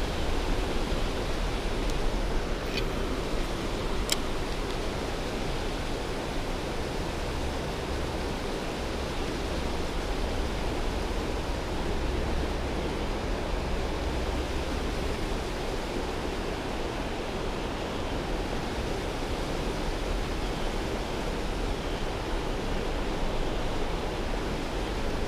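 Shallow creek water running steadily over rocks, a constant rushing hiss with a low rumble underneath. Two brief sharp clicks sound about three and four seconds in.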